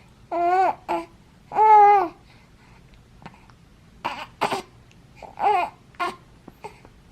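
Baby cooing: three drawn-out, pitched coos, the middle one the loudest, with short breathy squeaks and gasps in between.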